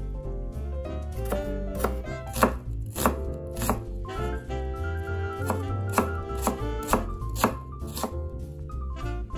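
Kitchen knife slicing an onion on a wooden cutting board, the blade knocking the board in steady strokes about two a second, with a short pause near the middle. Jazz music with a bass line plays underneath.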